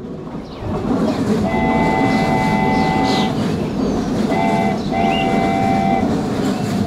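Train horn sounding over the steady rumble of a running train: one long blast of several held pitches, then a short blast and another held one.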